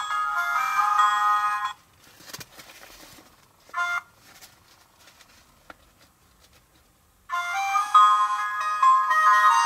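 Background music of high, chiming music-box-like notes, which cuts out about two seconds in and comes back near the end. In the quiet gap, faint clicks and rustles of the plastic doll being handled, with one short chiming blip.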